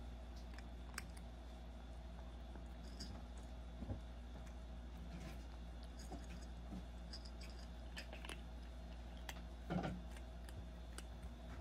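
Kitten crunching dry kibble from a bowl: small irregular crunches and clicks over a steady low hum, with one louder knock just under ten seconds in.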